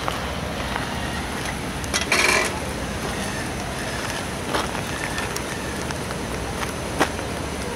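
MAN V8 heavy-haul truck and multi-axle trailer rolling slowly under a heavy load: a steady low rumble with crackling from the tyres and running gear. A short hiss comes about two seconds in, and a couple of sharp clicks follow later.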